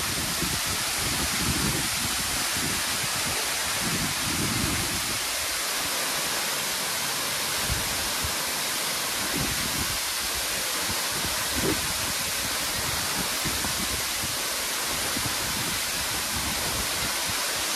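Waterfall splashing into a pool: a steady rush of falling water.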